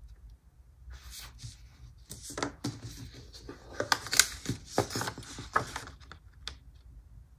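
Washi tape and paper being handled at a desk: an irregular run of sharp clicks and short crackling, tearing rustles, busiest from about two to five seconds in.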